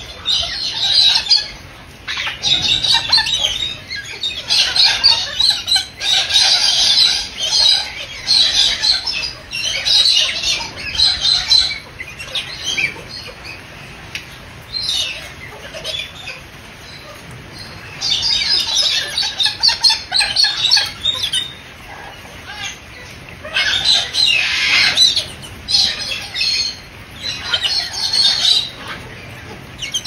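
Galahs (pink-and-grey cockatoos) squawking in repeated harsh bursts, with wings flapping. The calls come and go in runs, with a few quieter spells between them.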